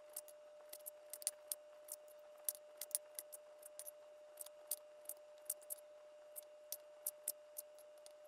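Knife slicing firm, partly frozen raw beef on a cutting board: sharp, unevenly spaced clicks about three a second, over a faint steady hum.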